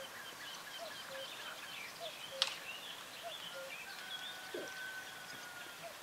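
A common cuckoo calling over and over, its two-note "cu-coo" repeating about once a second, with smaller birds chirping and trilling higher behind it. Near the end another bird holds a long thin whistle, and there is one sharp click about two and a half seconds in.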